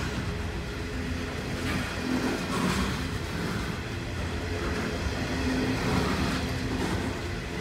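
Coal hopper wagons of a long freight train rolling past close by: a steady rumble of wheels on rails, with short steady tones that come and go.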